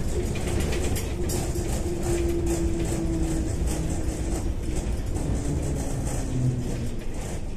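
Interior running noise of a Kyiv-12.03 tram on the move: a steady rumble of wheels and running gear on the rails, with an electric motor whine whose pitch drops a little in the second half.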